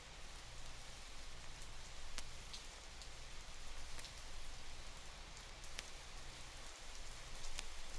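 Steady rain falling, heard from an old field recording played back off a vinyl LP, with a few sharp ticks scattered through it.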